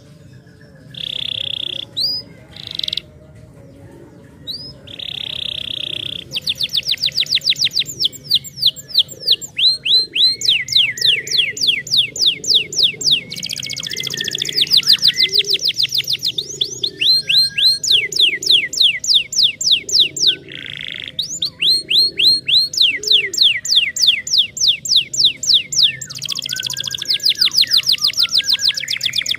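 Domestic canary singing. It opens with a few short buzzy notes and quick upward whistles, then from about six seconds in gives long, fast trills of rapidly repeated sweeping notes, broken by brief pauses.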